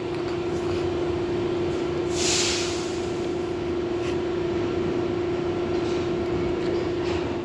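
R62 subway train running, a steady rumble with a constant hum, and a short hiss about two seconds in.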